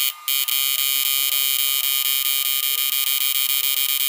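Homemade two-MOSFET PDC inverter running under a 1500 W load, giving off a loud, steady, high-pitched electrical buzz. It cuts out for a moment right at the start, then resumes.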